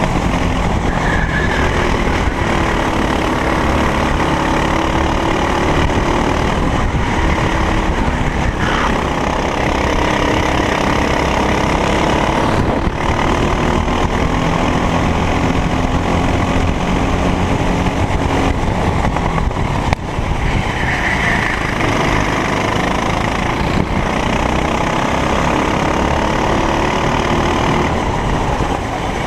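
Racing kart engine at race pace, its pitch climbing and dropping again and again as the kart accelerates out of corners and lifts into them.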